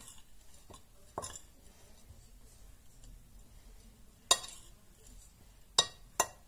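Ceramic plate clinking as a filling is mixed in it: four short, sharp clinks over a quiet background, the loudest a little past halfway and two in quick succession near the end.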